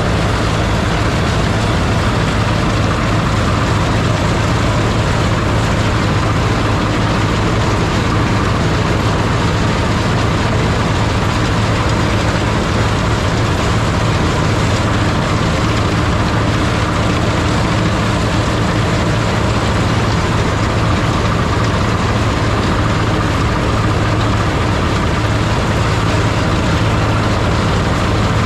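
Large farm machine's diesel engine running steadily under load, close up, with a constant low hum and an even mechanical rush that does not change.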